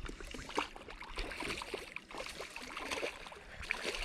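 Water splashing and trickling, with many small irregular splashes.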